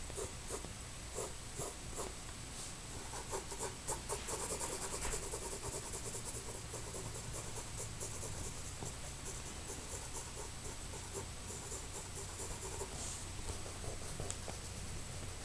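Pencil shading on drawing paper: quick scratchy back-and-forth strokes, densest from about four to eight seconds in.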